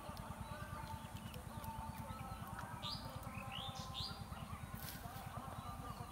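Birds calling, with a few short rising chirps about three to four seconds in, over a fast, steady low pulsing.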